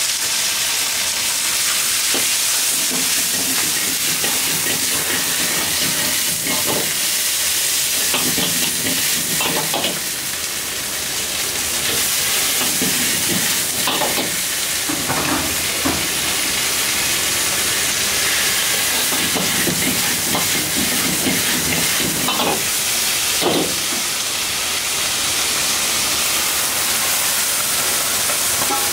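Vegetables sizzling in a hot wok over a gas flame while a ladle stirs and tosses them, with scrapes and knocks of the metal ladle against the wok. Near the end the wok is steaming hard, and a steady hiss of steam joins the frying.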